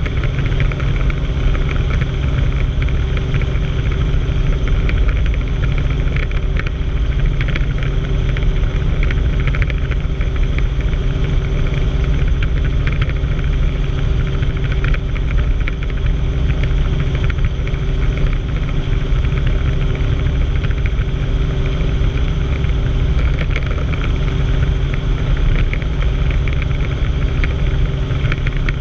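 Helicopter engine and rotor noise heard from inside the cabin in flight: a loud, steady low drone with a few steady tones running under it.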